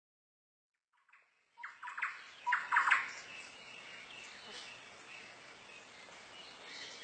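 Bird calls: starting about a second and a half in, a quick series of sharp notes, then faint chirping over a steady outdoor background.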